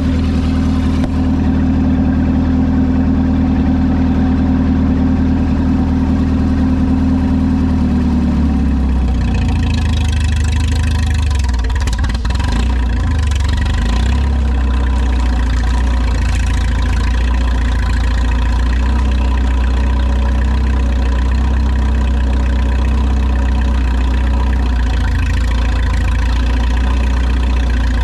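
Old farm tractor engine running steadily; about nine seconds in its note changes and the engine sounds busier from then on.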